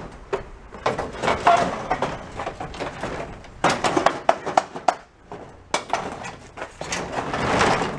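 Craftsman push mower rolling and sliding down an aluminium loading ramp from a pickup bed: a run of clatters, knocks and scraping of its wheels and deck on the metal ramp, rising to a longer scrape near the end.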